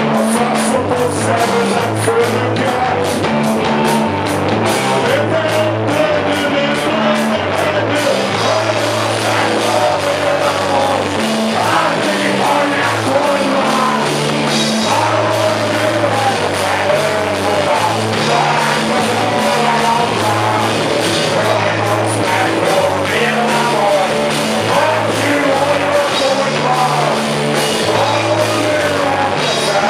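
A rock band playing live: a man singing over electric guitar and a drum kit, with a stepping low line under the vocal.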